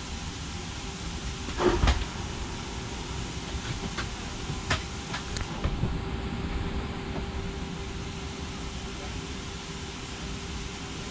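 Steady airliner cabin ventilation hiss during boarding, with a loud thump about two seconds in and several sharp clicks and knocks a few seconds later as passengers handle the overhead bins. A steady hum sets in about halfway through.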